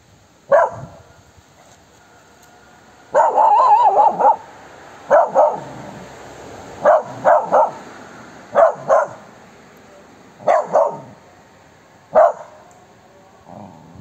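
Small black dog barking in sharp alarm barks, singly and in quick pairs, about a dozen in all, with a longer wavering bark about three seconds in. She is barking at an animal she has spotted among the trees.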